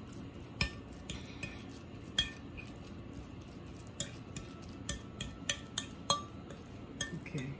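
Metal fork mashing canned sardines on a glass plate: the tines clink and scrape against the glass in irregular sharp taps, a few of them ringing briefly.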